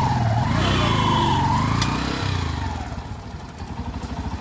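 125 cc motorcycle engine running, its revs and loudness dropping after about two seconds to a quieter, even idle as the towing pull on the tractor ends. A wavering, whistle-like high tone rises and falls over it during the first two seconds.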